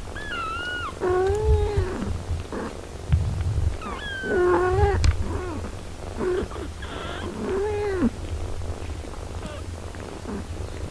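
A mother cat and her eight-day-old nursing kittens: a string of short mews that rise and fall, some high and thin, some lower, over a steady low purr.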